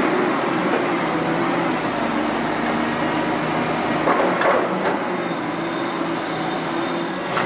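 Liebherr wheeled excavator's diesel engine running steadily under load as the hydraulic arm swings a full bucket of soil, with a short scraping rattle about four seconds in.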